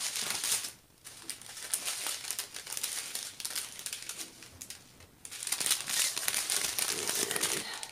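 Small plastic zip bags of resin diamond-painting drills being handled: crinkling and rustling plastic, with a short lull about a second in and the loudest crinkling in the last few seconds.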